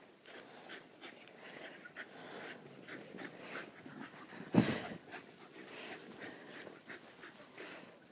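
Dogs panting as they run and play, with one short louder sound a little past halfway.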